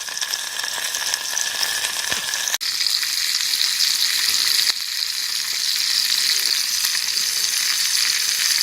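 Trout frying in a pan, a steady sizzling hiss, with a brief dropout about two and a half seconds in.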